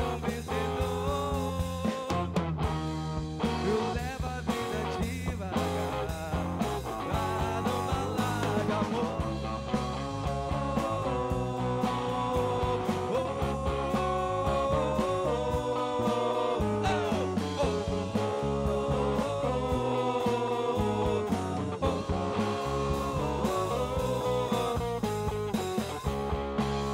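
Live rock band playing: a Pearl drum kit, electric guitar and electric bass, with a sustained lead line that bends in pitch over them.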